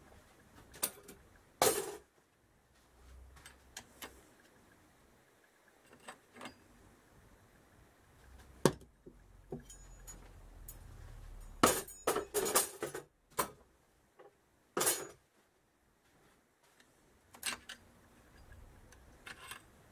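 Metal clutch plates from a Kawasaki KZ650 clutch clinking and clattering as they are handled and set down. The clinks come one by one, with a busier run of several knocks a little after the middle.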